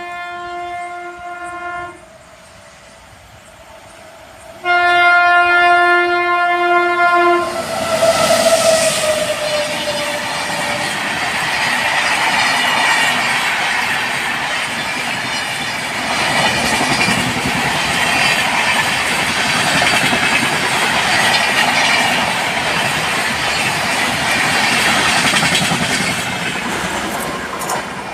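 A high-speed train's locomotive horn blows twice, the second blast dropping in pitch as the locomotive passes. The train then rushes past for about twenty seconds, with wheels clattering over rail joints, fading near the end.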